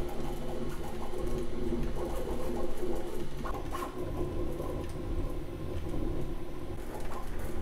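Bambu Lab A1 3D printer running a print: its stepper motors hum and whir in shifting tones as the print head and bed move.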